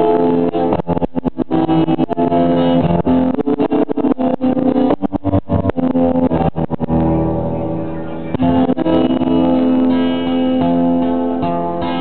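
Music led by a guitar, with sustained notes over short, quick strums.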